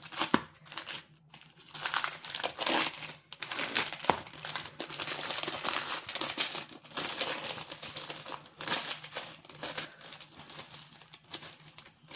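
Microwave popcorn packaging crinkling in uneven bursts as the plastic overwrap is pulled open and the bag is handled.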